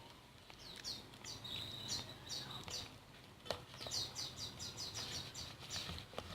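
A small bird chirping repeatedly in short, high, falling notes, with a quick run of chirps about four seconds in. There is a sharp click about three and a half seconds in, and another near the end.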